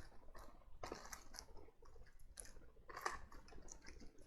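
Faint, irregular clicks and crinkles of small plastic parts bags being handled while spare switching ICs are sorted.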